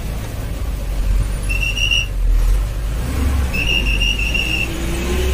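Bus engine running with a steady low rumble heard from inside the cabin, with two high-pitched squeals near the middle, the second about a second long.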